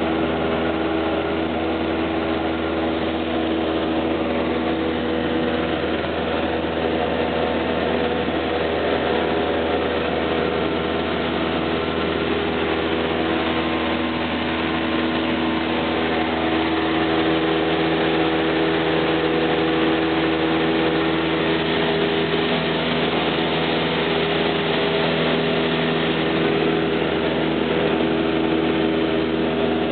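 Steady drone of a Cessna 172L's four-cylinder Lycoming engine and propeller in flight, heard inside the cabin.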